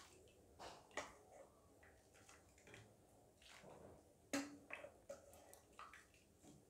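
Faint clinks and taps of a metal ladle against a glass bowl and a steel pot as soup is ladled out, with the loudest tap a little past the middle.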